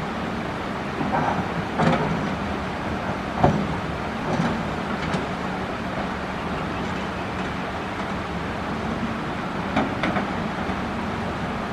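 Caterpillar excavator's diesel engine running steadily while it digs coral stone, with scattered clunks of the bucket against rock, the sharpest about three and a half seconds in.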